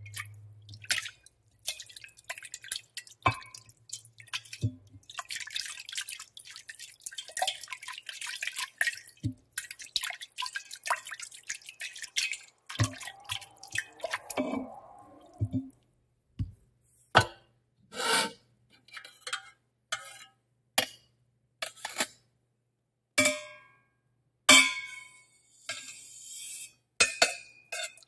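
Kitchen foley: a string of separate small knocks, drips and clinks from utensils, dishes and water. About five to ten seconds in there is a dense run of crackles, and near the end a short hiss.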